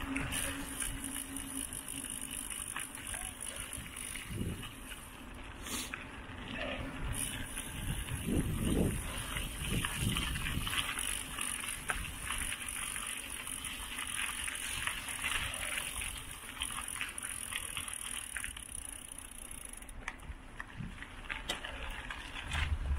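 Mountain bike being ridden: tyres rolling over the path with small clicks and rattles, and a few heavier bumps about eight to ten seconds in.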